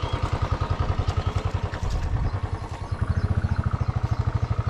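Royal Enfield Classic 350's single-cylinder engine running at low revs with an even beat of firing pulses. The beat dips slightly for a moment near the middle.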